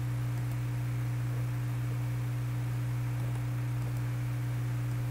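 Steady low electrical hum with a fainter higher hum tone above it and a light hiss, unchanging throughout.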